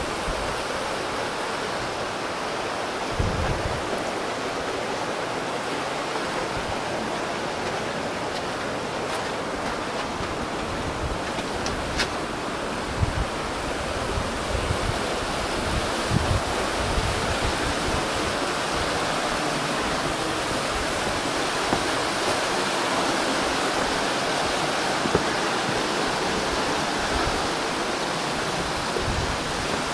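Steady rushing of a fast, muddy river flowing over rocks, with a few soft low thumps.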